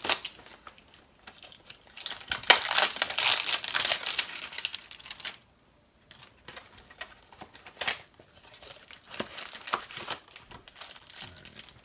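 Plastic wrap on a trading-card box being torn open with a flathead screwdriver and crinkling as it is pulled off. The densest, loudest crinkling comes about two to five seconds in, followed by scattered crackles and clicks.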